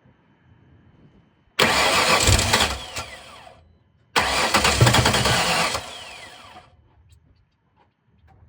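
2007 Ford Mustang's starter cranking the engine twice, each attempt about two seconds, with a falling whine as each one ends. The engine turns over but never catches: a crank-but-no-start fault.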